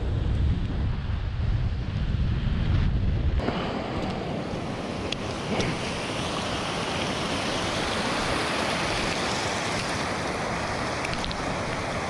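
Gale-force wind blasting the microphone as a heavy low rumble, which changes abruptly about three seconds in to a steady, higher rushing hiss of wind.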